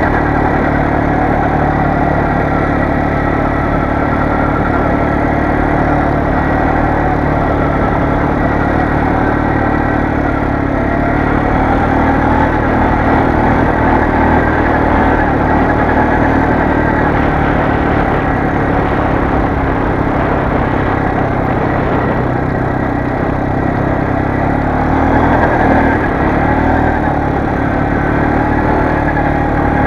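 2011 Kymco MXU 400 4x4 ATV's single-cylinder engine running steadily under way. Its pitch rises and falls a little with the throttle.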